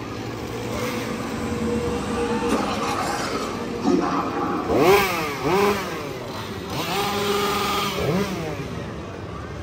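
Two-stroke chainsaw engines idling and then revving in several quick blips, the pitch rising and dropping back each time, from about four seconds in.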